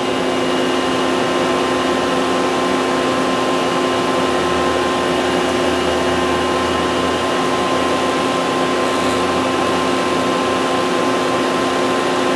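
Excel vertical machining center with a Fanuc 0M control running without cutting, a steady mechanical hum with several steady tones, as the tool is jogged down in Z for tool-length setting. A lower drone joins about four seconds in and fades out about ten seconds in.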